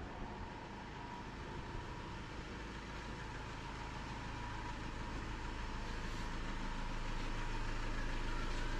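Motorhome engine idling steadily, growing gradually louder as it is approached, with a faint steady whine running along with it.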